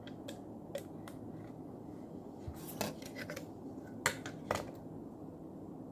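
Scattered light clicks and taps of small phone parts and tools being handled and fitted while a smartphone is reassembled, with a little cluster a little under three seconds in and the two sharpest about four and four and a half seconds in, over a steady low background noise.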